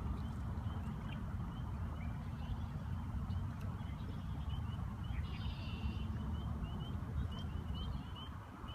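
A chorus of spring peepers, tree frogs calling to mate: many short, rising peeps, several a second, over a steady low rumble. A brief buzzy trill joins in about five seconds in.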